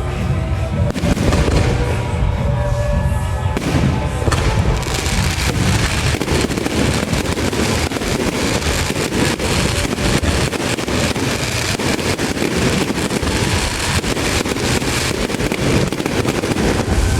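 Fireworks crackling in a rapid, continuous barrage of sharp bangs, starting a few seconds in. Before that, procession music plays.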